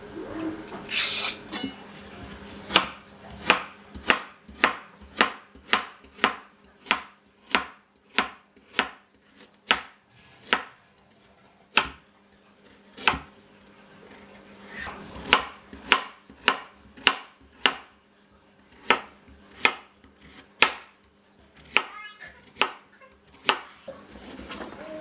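Chef's knife slicing a peeled carrot into rounds on a plastic cutting board: a sharp knock of the blade through the carrot onto the board about one or two times a second, with short pauses.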